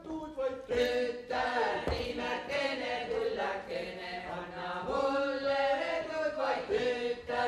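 Seto leelo: unaccompanied polyphonic folk singing by women's and a man's voices, held in long, steady notes and sung in phrases.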